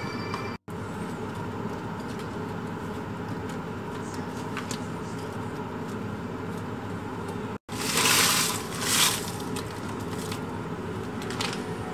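A steady low hum with light kitchen handling sounds. A little past the middle come two short crinkling rushes as ingredients are tipped from a plastic bag into a frying pan.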